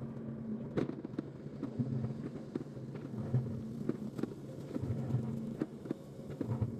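Low, uneven rumble like wind on the microphone, under a faint steady hum, with scattered light knocks and clicks.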